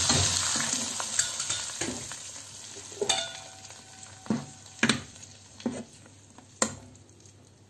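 Hot tempering oil with mustard seeds, dried red chillies and curry leaves sizzling in a pot of yogurt curry, the sizzle dying away over the first few seconds. A ladle stirs it in, knocking against the pot about seven times.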